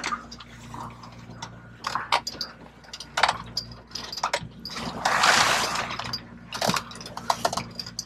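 Sea water rushing and splashing along a moving sailboat's hull, with wind on the microphone, over a steady low hum. The rush comes and goes irregularly, loudest about five seconds in.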